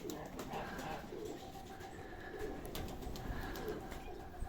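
Domestic pigeons cooing, one soft low coo after another, over a steady wind rumble.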